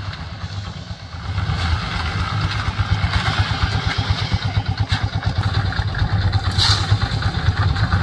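Diesel engine of a site concrete mixer running steadily with a rapid chugging beat while it mixes concrete for casting.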